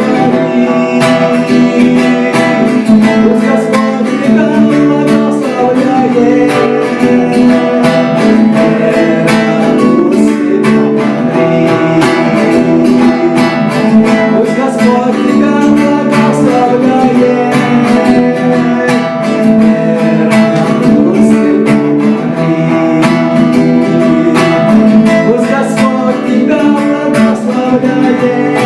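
A song led by strummed acoustic guitar, with a steady beat.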